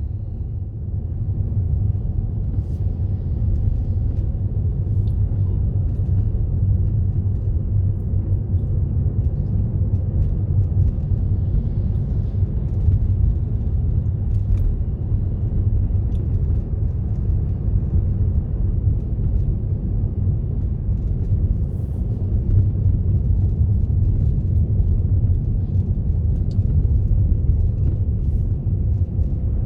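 Steady low rumble of a car driving on a road, heard from inside the vehicle: engine and tyre noise with no letup.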